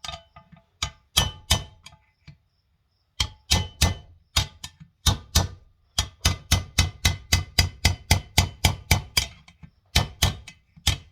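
Repeated hammer blows on metal, driving out a stuck bearing in a tractor's front final drive housing. The blows come in runs, speeding up to about three a second in the middle, with short pauses between the runs.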